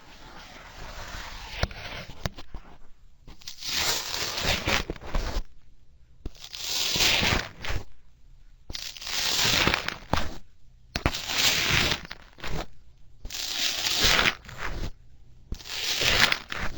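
Slime being worked by hand in six separate strokes, each a noisy one-to-two-second squish and tear with short pauses between, after a few seconds of softer handling.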